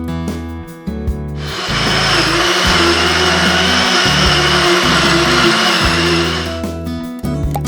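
Electric mixer grinder running for about five seconds with a steady whine, grinding a dry mix of roasted grain powder and nuts; it starts about a second and a half in and stops near the end. Background acoustic guitar music plays throughout.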